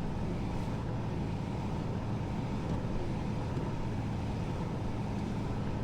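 Truck engine running at a steady idle, an even low hum with no change in speed.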